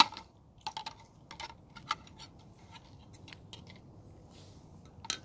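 Scattered light clicks and taps of small parts being handled while a piece is fished out of a truck's rear wheel hub. The sharpest click comes right at the start, with a few more over the next two seconds and one near the end.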